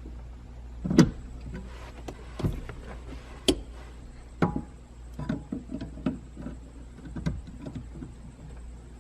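Needle-nose pliers clicking and knocking against the clutch pedal return spring and pedal assembly while working the spring off: a string of sharp metallic clicks, the loudest about a second in, with one short ringing clink about four and a half seconds in.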